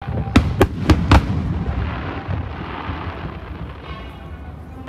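Aerial firework shells bursting: four sharp booms about a quarter of a second apart in the first second or so, then a softer, noisy stretch.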